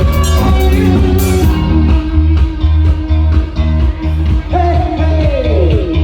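Live rock band playing: a steady pulsing bass line under drums and guitar, with a long note falling in pitch near the end.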